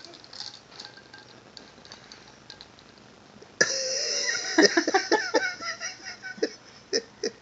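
Faint sips and swallows as a baby drinks juice from a glass. About three and a half seconds in comes a sudden loud breathy gasp with a short voiced sound from the baby as he comes off the glass, followed by lip smacks and small breaths.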